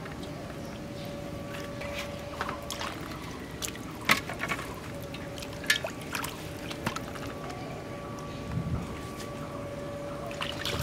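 Hands washing cut pieces of rohu fish in a steel bowl of water: water sloshing and splashing, with a couple of sharp louder splashes about four and six seconds in. A faint steady hum runs underneath.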